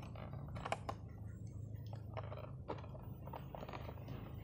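Handling noise from a boxed model aircraft: scattered clicks, taps and scratchy rustles of fingers gripping and sliding along the box, the sharpest a little under a second in. A low steady hum runs underneath.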